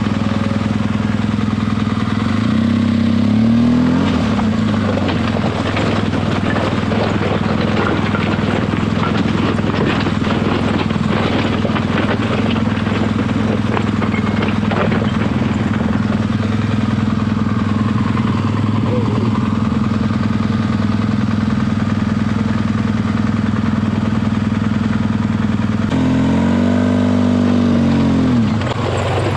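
BMW R1200GS Adventure boxer-twin engine running at low revs on a rough trail, briefly revved about three seconds in and again near the end. Frequent sharp knocks and clicks from the rocky ground come through the middle.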